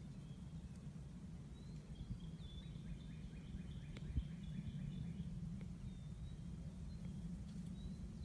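Outdoor ambience: a steady low rumble with birds chirping over it, a quick run of short high chirps in the middle and a few single calls before and after.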